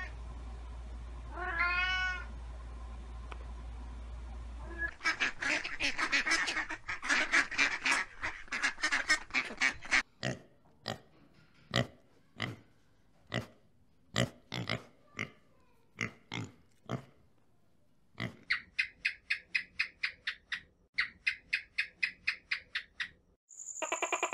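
A series of animal sounds. It opens with a single pitched call about two seconds in, then a few seconds of dense, rapid clicking and chattering, then spaced sharp clicks, and then two runs of fast, high-pitched pulsing.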